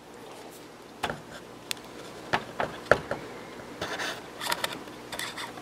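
Light handling sounds of latex caulk being applied to and pressed into a hole in foam: scattered small clicks and soft rubbing over a faint steady hum.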